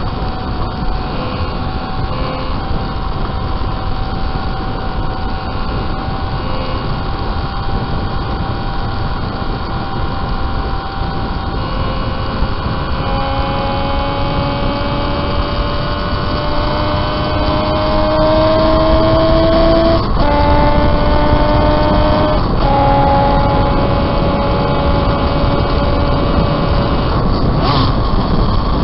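Onboard sound of a home-built 195cc three-cylinder racing motorcycle engine at speed, under heavy rushing noise. About halfway through, its note climbs steadily under hard acceleration, then drops sharply with an upshift, and drops again with another upshift a couple of seconds later.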